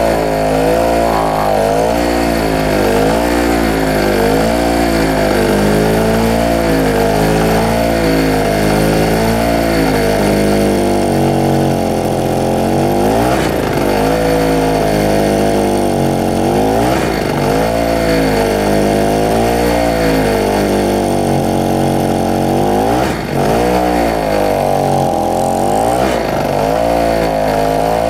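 SIP Medusa T951 two-stroke generator engine running under the load of a work light. Its speed keeps rising and falling, a surge and sag every second or two, with a few deeper sags in the second half.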